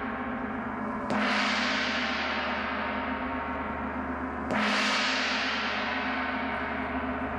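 Large Zildjian gong struck twice, about a second in and again past the middle. Each stroke rings on and fades slowly, and the ring never dies away between strokes.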